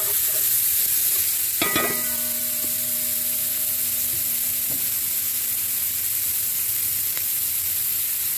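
Chopped onion sizzling in hot oil in a metal caldero while it is stirred with a metal spatula. About two seconds in, a single metallic clank rings on for a few seconds.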